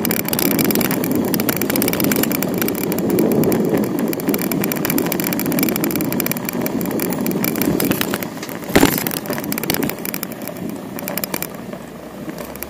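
Bicycle rolling along a city street, recorded from the bike: steady tyre and road noise with a fast rattle of small clicks, and one sharp knock about nine seconds in. The noise gets quieter near the end.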